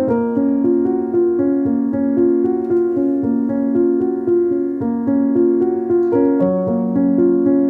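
Background keyboard music: a melody of held notes that change about every half second.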